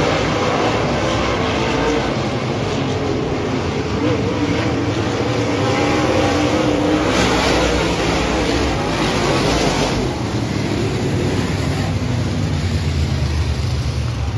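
A pack of dirt-track race cars running at speed around the oval, many engines at once, with wandering engine tones over a steady din. It gets louder about seven to ten seconds in as the cars pass close by.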